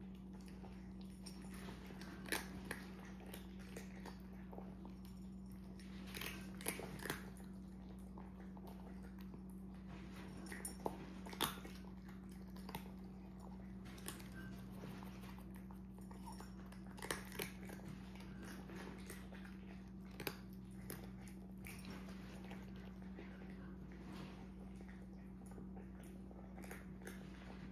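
Cats eating from ceramic bowls: irregular crunching and small clicks of chewing, with a steady low hum underneath.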